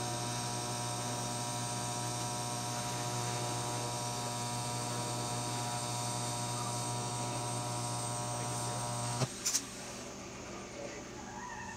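TIG welding arc on steel, a steady electrical buzz-hum with a high hiss, cutting off sharply about nine seconds in as the arc is broken. Two short clicks follow.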